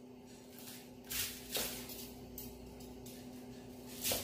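Kitchen knife chopping through garlic chive stalks onto a wooden cutting board: three sharp chops, about a second in, half a second later and near the end, over a faint steady hum.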